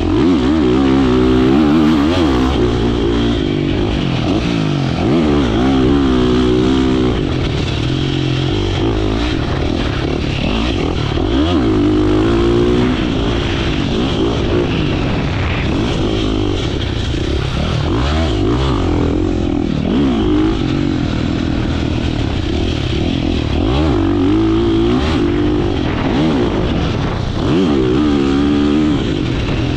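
2024 KTM motocross bike's engine ridden hard around a dirt track, revving up and dropping off again and again through the lap, heard from the rider's helmet.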